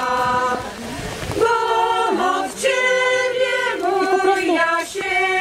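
Mixed folk choir of men and women singing a Polish folk song a cappella in harmony, in long held notes, with a short breath pause about a second in before the next line.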